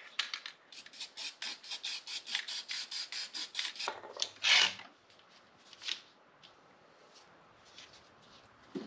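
Aerosol can of high-heat spray paint shaken, its mixing ball rattling about six times a second for several seconds, then a short spray hiss about four and a half seconds in and a shorter one a second later.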